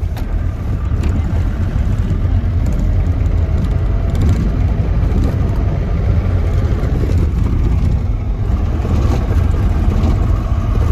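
Steady low rumble of a moving vehicle heard from inside the cabin: engine and road noise while driving.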